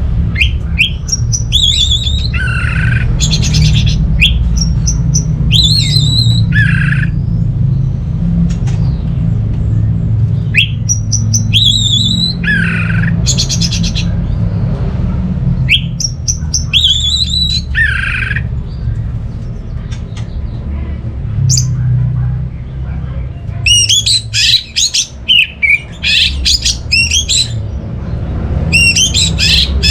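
Orange-headed thrush singing in repeated phrases of sliding whistled notes and fast chattering runs, which get denser near the end, over a steady low hum.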